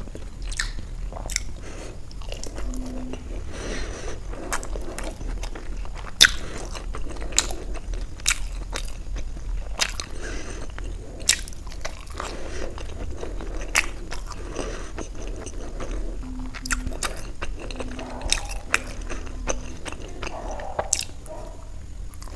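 Close-miked mukbang eating sounds: a person biting into and chewing soft steamed paneer momos dipped in chutney, with wet mouth clicks and smacks throughout.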